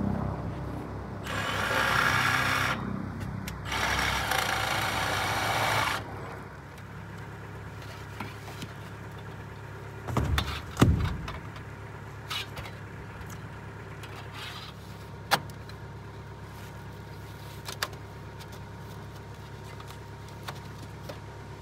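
Two loud rushes of noise in the first six seconds. Then a quieter stretch of scattered clicks and light taps as a sheet-metal storm collar is worked into place around a stainless steel stove pipe.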